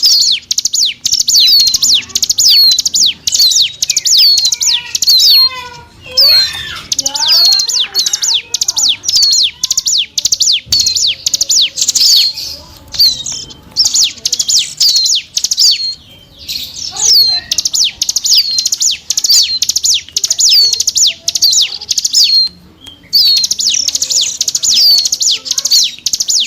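Ciblek gunung (a prinia) song used as a lure call: a fast, steady series of high, hooked chirps repeated over and over, broken by a few short pauses. About six to ten seconds in, a lower, varied twittering phrase takes over before the high chirping returns.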